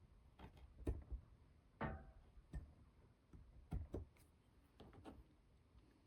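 Faint, irregular light taps and clicks of small tools and wooden parts handled on a workbench while scale boards are marked, one knock about two seconds in ringing briefly.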